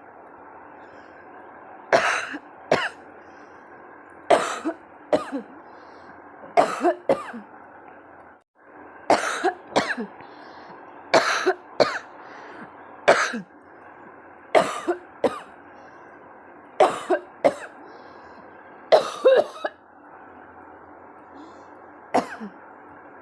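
A woman coughing deliberately and repeatedly, mostly in pairs of short sharp coughs that come about every two seconds. Her throat feels tickly, and some of the coughs turn real.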